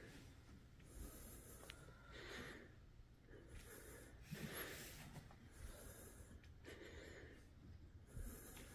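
Near silence, broken by faint, short breathy bursts about once a second: a karate performer breathing sharply as she opens the kata.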